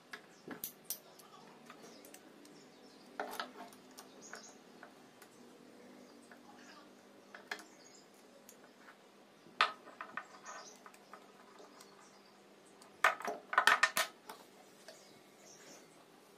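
Metal clinks and clicks of small hardware being handled and fastened by hand: a pillow block bearing, screws and a steel drawer slide, worked with a hand tool. The clicks are scattered, and the loudest, densest cluster comes near the end.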